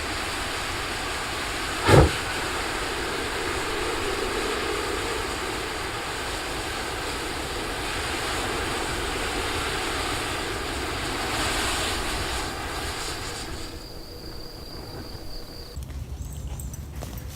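A giant ball of matches burning with a steady rushing hiss of flame, with one sharp crack about two seconds in; the hiss quietens near the end.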